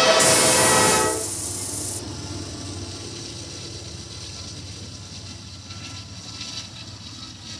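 Norfolk Southern GE AC44C6M diesel locomotive's air horn sounding a chord, cutting off about a second in, followed by the steady rumble and wheel-on-rail noise of a double-stack intermodal freight train rolling past.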